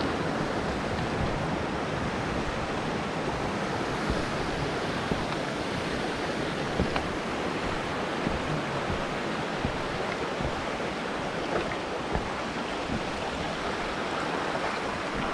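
A steady rushing noise, with a few faint knocks now and then.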